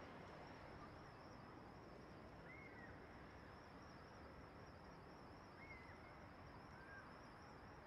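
Near silence: faint outdoor ambience with a steady high-pitched drone and three brief faint chirps, at about two and a half, six and seven seconds in.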